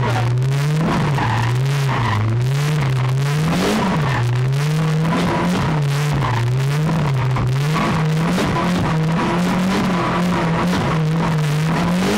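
A drift car's engine, heard from inside the cabin, with revs rising and falling every second or so as the throttle is worked to hold the car sideways in a steady circle drift around pylons, and with some tyre squeal.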